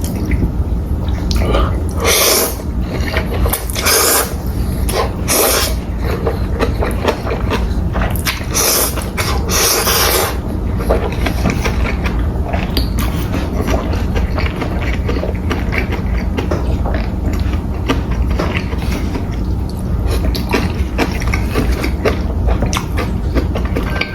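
Close-miked eating of instant noodles: wet slurps and chewing, with a run of loud slurps in the first half, over a steady low hum.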